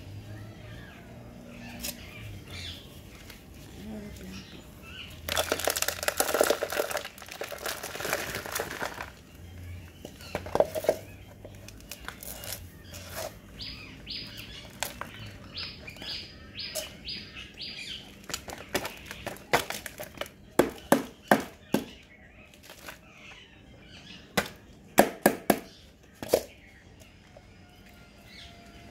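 Hands working potting soil in plastic plant pots. About five seconds in comes a few seconds of dense rustling and pouring; later there are runs of sharp knocks and taps as a small plastic nursery pot is handled and tapped over a large pot. Birds chirp now and then in the background.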